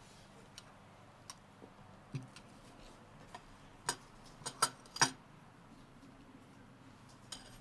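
Teaspoon clinking against a china teacup: scattered light clicks at uneven intervals, with a quick cluster of sharper clinks about four to five seconds in.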